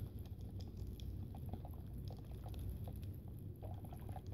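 Faint, irregular crackling clicks from popping candy in a drink, stirred with a straw in a plastic cup.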